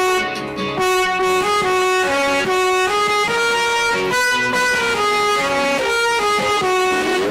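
Instrumental music: a melody of clear, held notes changing every half second or so, at a steady loud level.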